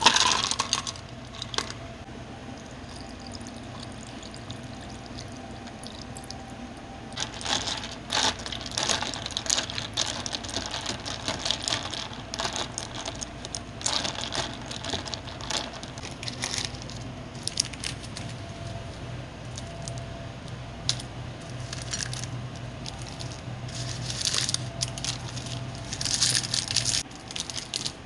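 Ice cubes clatter from a metal scoop into a paper cup at the start. From about seven seconds in comes on-and-off clinking and rattling as a spoon stirs the ice in a cup of iced coffee. A low steady hum runs underneath.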